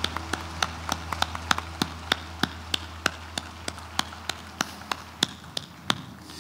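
Hands clapping close to a microphone, a steady beat of sharp claps about three a second, growing quieter toward the end, over a low steady hum.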